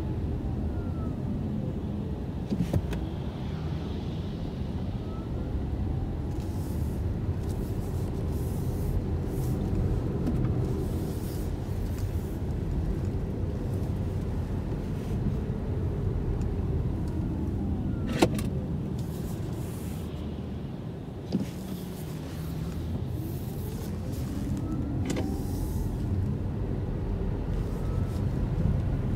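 Opel Mokka-e electric car driving: a steady tyre and road rumble with faint whines that fall in pitch near the start and rise again near the end. A few sharp clicks or knocks cut through, the clearest about 18 seconds in.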